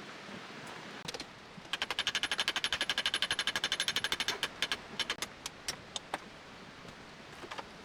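Hand hammer striking a spring-steel dagger blade on an anvil during forging: a fast run of light, ringing blows, about ten a second, for roughly two and a half seconds, then a few slower, scattered strikes.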